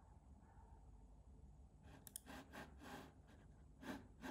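Near silence: room tone with a handful of faint clicks from a computer keyboard and mouse in use, clustered about two to three seconds in and once more near the end.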